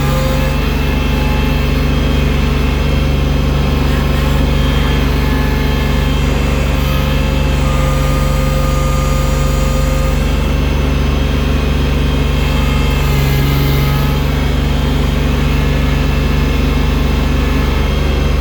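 Engine of a bucket-equipped snow-clearing machine running steadily at a constant pitch, heard close up.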